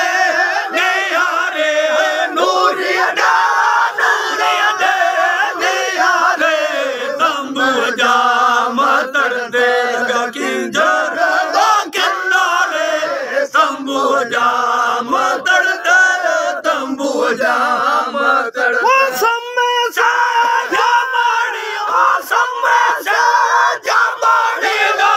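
Group of men singing a Sindhi Raag kafi in chorus without instruments, many loud, high, held voices overlapping in a continuous chant.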